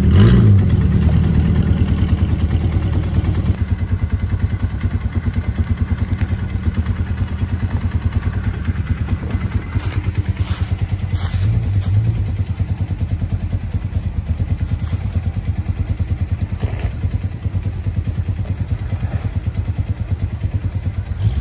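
Polaris 500 4x4 ATV engine idling close by, a steady low note with an even rapid pulse. A few short knocks come about ten to twelve seconds in.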